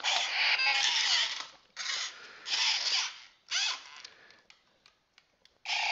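Silverlit Program-a-Bot toy robot playing electronic sound effects through its small speaker: three loud noisy bursts with sweeping tones in them, then a pause, and near the end a steadier sound with held tones starts.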